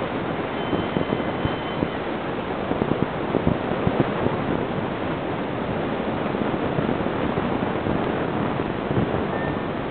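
Surf washing on the beach and wind blowing across the microphone: a steady noise with a few short gusts.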